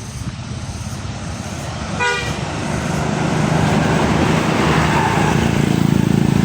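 A bus drawing closer, its engine growing steadily louder, with a short horn toot about two seconds in.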